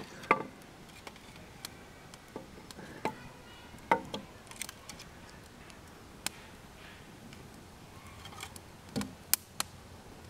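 Newly lit campfire crackling, with scattered irregular sharp pops and snaps over a low steady background.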